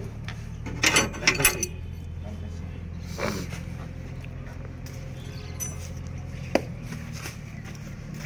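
A steady low mechanical hum, with a short cluster of sharp clattering sounds about a second in and a single sharp click later on.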